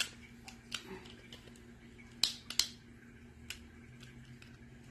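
Sharp plastic clicks of a Beyblade spinning top and its launcher being handled and snapped together by hand. There are about half a dozen scattered clicks, the loudest two close together a little over two seconds in.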